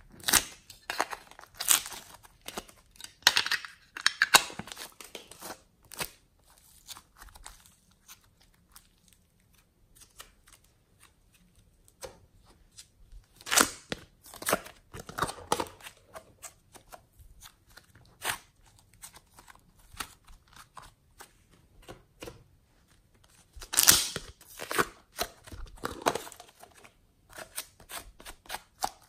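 Small plastic tubs of soft modelling clay being opened and the clay pulled out by hand: clicks of lids and crackly, peeling and tearing sounds. They come in three busy stretches, near the start, in the middle and near the end, with quieter handling between.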